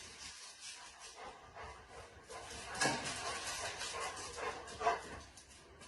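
A dog making soft noises, louder for a moment about three seconds in and again near five seconds.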